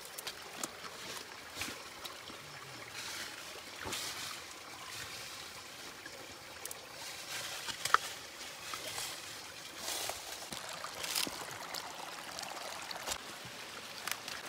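Shallow stream trickling over rocks, with splashes and knocks as a stick is poked into the water among the stones; one sharp knock about eight seconds in is the loudest sound.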